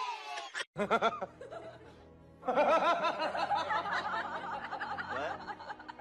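Sound cuts off abruptly under a second in, then a person laughs in quick repeated bursts.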